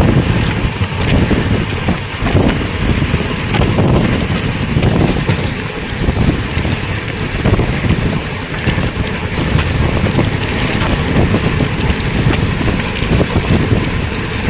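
Moving train running, with heavy wind buffeting the microphone; a steady noisy rumble that rises and falls in level.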